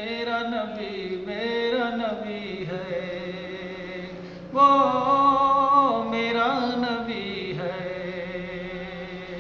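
Male voice singing an Urdu naat in long held, ornamented notes over a steady low drone. A louder phrase begins about halfway through.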